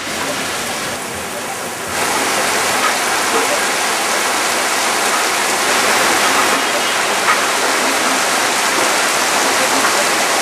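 Heavy rain pouring down in a steady, dense hiss that gets louder about two seconds in.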